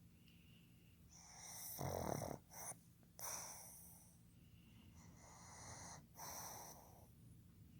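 A pug snoring in its sleep: rasping, rattling snore breaths, the loudest with a deep rumble about two seconds in, and a softer one from about five to seven seconds.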